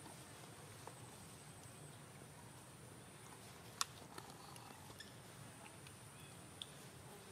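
Quiet outdoor ambience: a faint steady high-pitched hum and a few light clicks, the sharpest nearly four seconds in.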